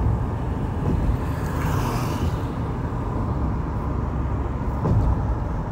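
Steady road and engine rumble of a moving car heard from inside it, with a brief louder hiss about two seconds in.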